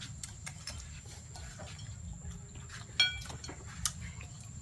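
Small taps and rustles of handling food and tableware, with one sharp clink about three seconds in that rings briefly, like glass or metal being struck, and a smaller knock just under a second later. A faint steady high tone runs underneath.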